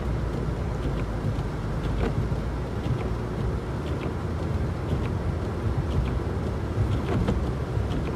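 Car driving on a snowy, slushy road: a steady low rumble of tyres and engine with an even hiss over it. Faint scattered ticks come through now and then.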